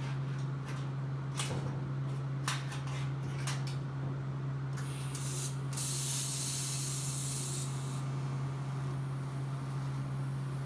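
Welding arc on roll-cage steel tubing: a few short crackles in the first four seconds, then a steady hiss lasting about three seconds from around five seconds in, over a constant low hum.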